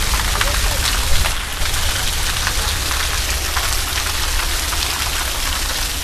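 Escalator running: a steady low hum and hiss with many small scattered clicks.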